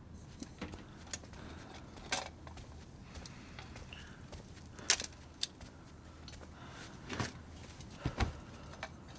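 Scattered small clicks, clinks and soft knocks over a low steady hum, with a sharp click about five seconds in and a few heavier knocks near the end.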